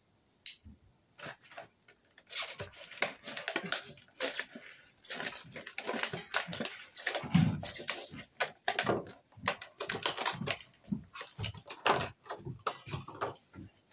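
Hands handling a double-pole circuit breaker: a string of irregular clicks, rattles and rustles, with one brief low sound about halfway through.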